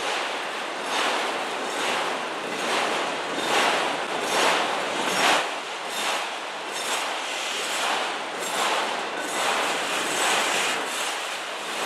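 Freight train's autorack cars rolling past: steady clatter and rattle of steel wheels on rail, swelling in regular surges a little under once a second as the wheel sets go by.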